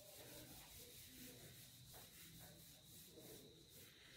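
Faint rubbing as marker writing is wiped off a whiteboard.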